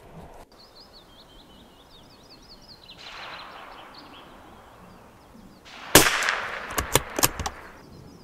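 A single shot from a Tikka T1X bolt-action .22LR rifle firing subsonic Norma Match-22 match ammunition, a sharp crack about six seconds in, followed by several quick metallic clicks as the bolt is worked. Wind noise rushes on the microphone before the shot.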